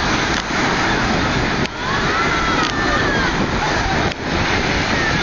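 Steady rush of waves breaking on a pebble beach, mixed with wind noise on the microphone. Faint voices call out in the background.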